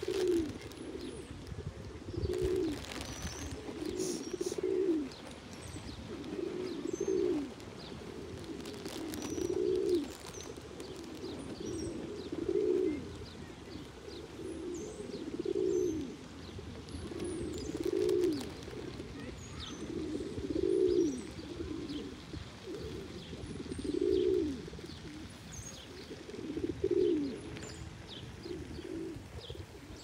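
Feral pigeons cooing: a low coo that rises and falls, repeated every two to three seconds, with faint high bird chirps in the background.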